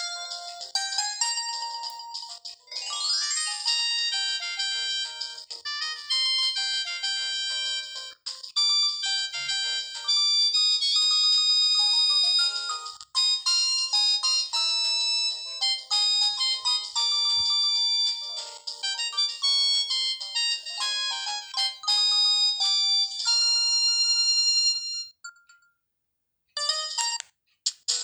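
Samsung GT-E1080F ringtones playing: bright, high-pitched electronic melodies made of quick notes. The tune stops about 25 seconds in, and after a short pause a different ringtone begins.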